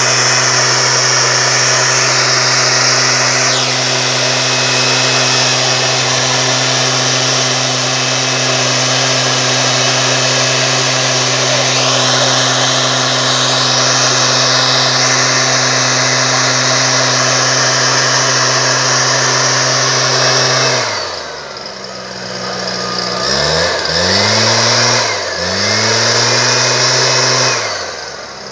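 Stihl SR 5600 backpack mist blower's two-stroke engine running steadily at high speed. Near the end the revs drop sharply, then are throttled up and let down twice.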